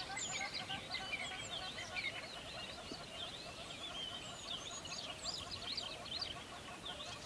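A dense chorus of many birds chirping, with quick, overlapping rising and falling high notes over a busy patter of lower, shorter calls.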